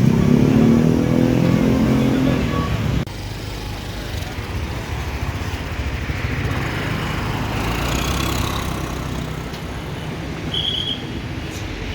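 A large diesel bus engine running loud, its pitch rising as it accelerates past, cutting off abruptly about three seconds in; after that, a steady low rumble of road traffic.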